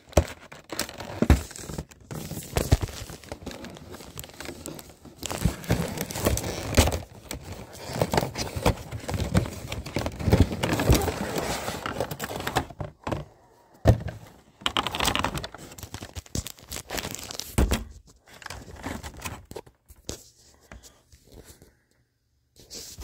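Packaging being torn open and crinkled by hand, with irregular tearing, crackling and rustling and a few knocks, dying away to quiet in the last few seconds.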